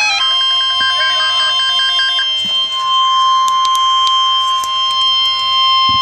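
NOAA Weather Radio 1050 Hz warning alarm tone: one loud, steady beep held without a break, starting just after the Emergency Alert System's digital header bursts cut off. It signals that a weather alert message, here a tornado watch, is about to be read.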